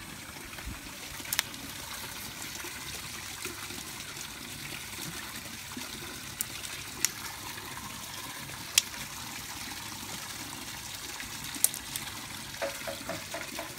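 Small stones clicking sharply now and then, about five distinct clicks, as they are handled and dropped, over a steady trickling hiss.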